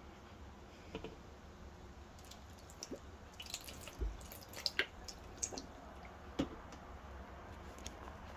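Lemon juice squirted from a plastic squeeze bottle onto a bowl of ground spices: faint wet drips and splats with small clicks, and a low thump about four seconds in.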